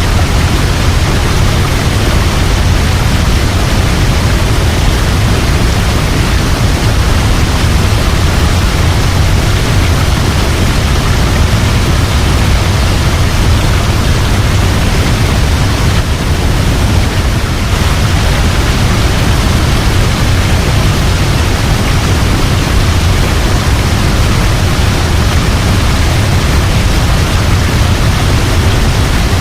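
Waterfall: falling water making a steady, loud rush with a heavy low rumble and no breaks.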